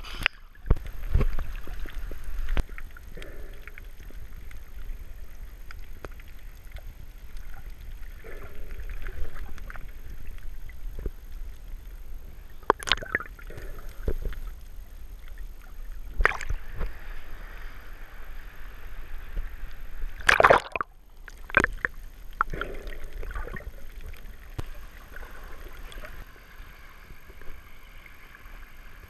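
Sea water sloshing and gurgling around a camera held at the surface while snorkelling, muffled as it dips under and comes back up. Several sudden splashes break through, the loudest about twenty seconds in.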